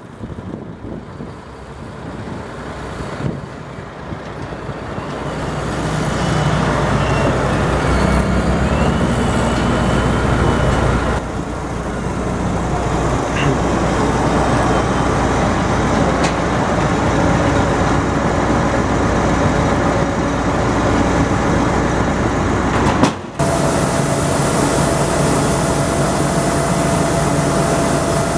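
John Deere tractor engine growing louder as it pulls up, then running steadily beside the truck trailer while the HAWE grain cart's unloading auger pours wheat into it. The sound breaks off briefly about three-quarters of the way through, and after that a steady whine from the engine and auger sits over the running noise.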